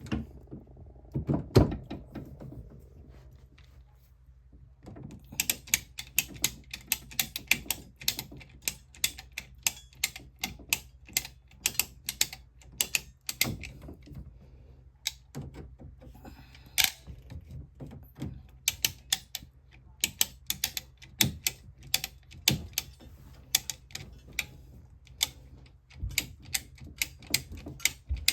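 A plumbing clamp being worked tight, with rapid, uneven clicking from about five seconds in. A few knocks come before it.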